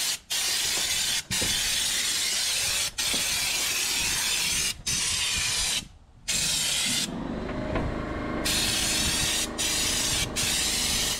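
Compressed-air bedliner spray gun, fed at about 50 PSI, spraying coating from its screw-on bottle onto a truck bed: a loud hiss in long trigger pulls, broken by short pauses several times and a longer one about six seconds in.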